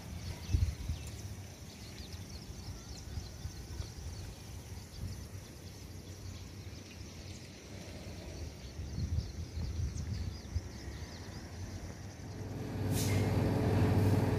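Outdoor morning ambience: a breeze rumbling on the microphone, with faint bird chirps. Near the end a steady motor-like hum starts up and grows louder, with a sharp click just after it begins.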